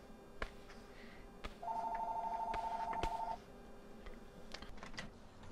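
A telephone ringing once: a two-tone warbling ring lasting under two seconds, starting about a second and a half in. A few faint clicks come before and after it.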